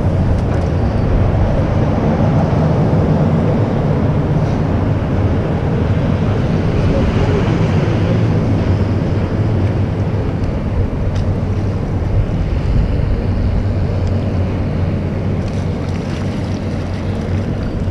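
Steady wind rumble on the microphone, with water washing around a small boat.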